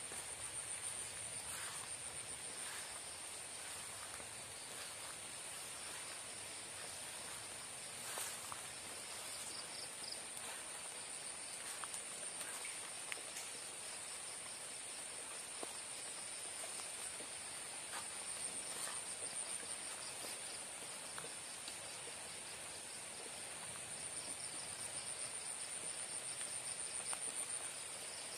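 Night insect chorus: a steady high-pitched trill throughout, with a second, lower pulsing trill joining in now and then. A few faint ticks and rustles sound over it.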